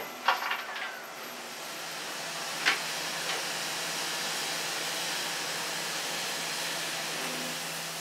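A2 class steam locomotive standing with steam hissing steadily, over a faint low hum. A few sharp metallic clanks come near the start and once more a little under three seconds in.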